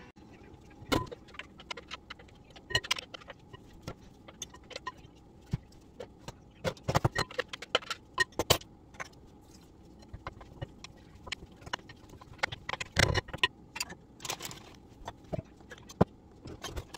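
Irregular clicks, knocks and scrapes of kitchen handling: a food processor bowl and a wooden spoon knocking and scraping as chopped mixture is scooped out into a glass bowl.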